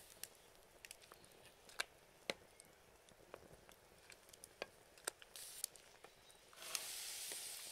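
Faint, scattered crackles from a wood fire under a pot of boiling water, with a soft steady hiss coming in near the end.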